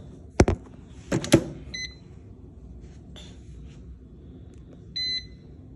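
Proscenic air fryer basket pushed shut with a few hard clunks, then two electronic beeps from its touch control panel: a short one about two seconds in and a longer one near the end.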